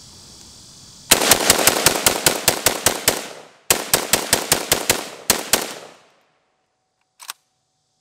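DPMS Anvil AK-47 rifle fired in rapid semi-automatic strings of 7.62×39 shots, about six a second: a long string, then a shorter one, then three shots, followed by a short click. The rifle is cycling without a stoppage, and the shooter blames the earlier trouble on one particular magazine.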